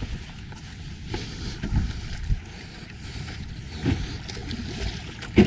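Wind buffeting the microphone and choppy waves slapping against a small outrigger boat's hull, rising and falling in gusts, with one sharp knock near the end.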